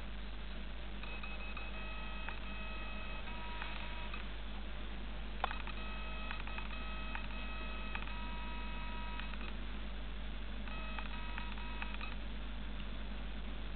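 Electronic tones, several steady pitches sounding together, in three stretches of a few seconds each over a steady low hum, with a single click about five and a half seconds in.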